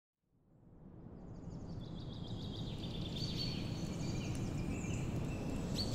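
Outdoor ambience of birds chirping over a steady low rush, fading in from silence over the first second or two; the birds give many short, quick calls that rise and fall in pitch.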